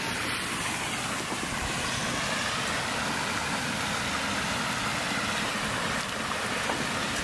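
Permobil F3 power wheelchair driving: a steady hum of its drive motors with a faint wavering whine, and the noise of its tyres rolling.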